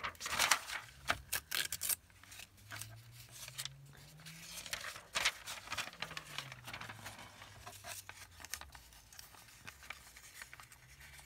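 Old lined paper being torn and handled: quick ripping and rustling, busiest in the first two seconds and again around the middle.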